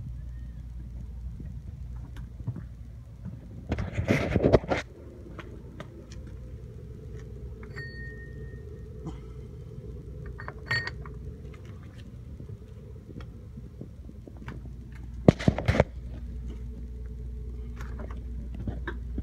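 Steady low hum with two loud bursts of clatter and rustling, about four seconds in and near fifteen seconds, and a light metal clink near eleven seconds as the lid of a Smoke Daddy smoke generator canister is handled.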